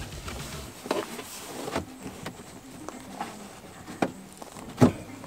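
Plastic cargo-area trim on a minivan being worked loose by hand: a few separate sharp clicks and knocks, the loudest near the end.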